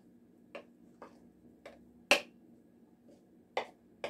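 Metal utensil knocking against a ceramic mixing bowl while cutting lard into flour: six sharp, irregular clinks, the loudest a little past two seconds in.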